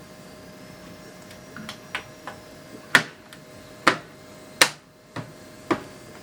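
Irregular sharp plastic clicks and snaps from a PC case's front panel being worked loose, with three loud snaps about a second apart in the middle. They are typical of the panel's retaining clips popping free.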